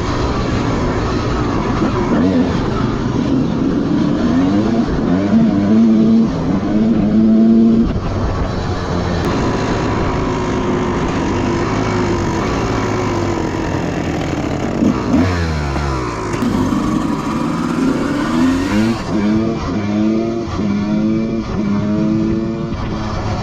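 Motorcycle engine revving and accelerating, its pitch climbing in repeated rises as it is run up through the gears.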